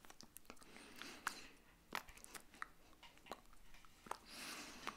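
Faint mouth clicks and lip smacks with light hand taps from a person signing, scattered irregularly, with a soft rush of breath near the end.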